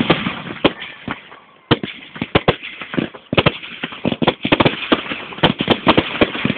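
Fireworks going off: sharp bangs and crackling reports in dense clusters. They die down over the first second or so, then fresh volleys start just under two seconds in and keep coming in quick succession.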